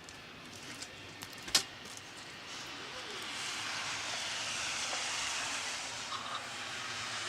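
A rushing hiss that swells over a few seconds and holds, after a sharp click about one and a half seconds in.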